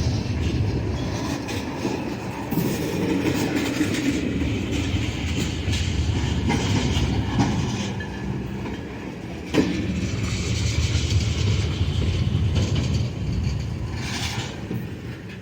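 Train rolling past, its wheels clacking over the rail joints under a steady low rumble, with a sharp clank about nine and a half seconds in.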